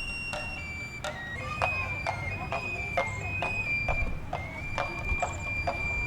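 Background music: a high, held melody line moving in steps over a steady percussive beat of about two strokes a second.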